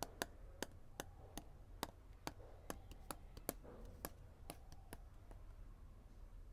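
About a dozen sharp, irregular clicks, two or three a second, from a small red pen or pencil handled in the fingers, stopping about five seconds in. Under them runs a faint, steady low hum.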